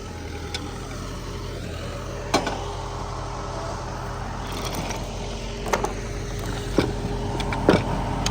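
An engine running steadily at idle, with four sharp metal clanks or knocks spread through the middle and later part.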